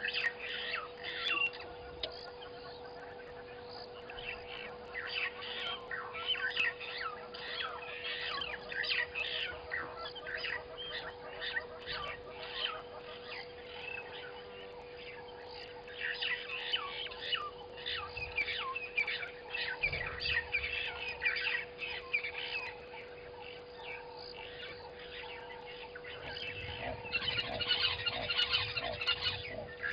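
A chorus of many birds chirping and calling at once, short quick chirps overlapping throughout and growing busier near the end. A steady faint hum runs underneath.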